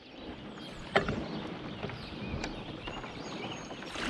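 A single sharp knock about a second in, over steady outdoor background noise from the creek, with a few faint short bird chirps.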